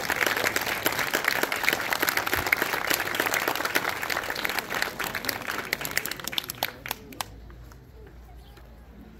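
Audience applauding: dense clapping that thins to a few last separate claps about seven seconds in, then stops.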